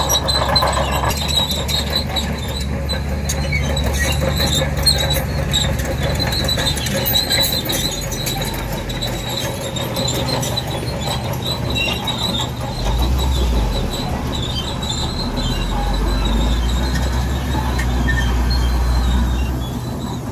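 A bulldozer at work: a steady high squeal of steel crawler tracks over a low diesel engine rumble, which grows heavier twice in the second half as the machine takes load.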